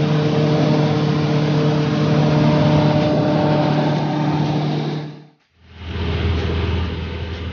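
Light aircraft engine and propeller droning steadily in the cabin, a steady hum over rushing noise. A little past five seconds it fades out, and a second, lower-pitched stretch of engine drone fades in.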